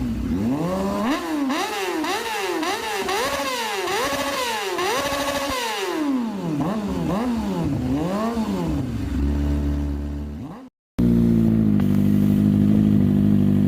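Kawasaki ZX-25R's 250 cc inline-four engine with an SC Project slip-on exhaust, revved up and down again and again in quick blips. It then settles to a steady idle, and after a short break it is idling again.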